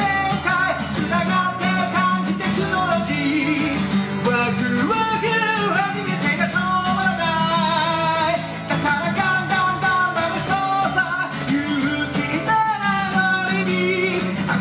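A song with a singing voice over guitar.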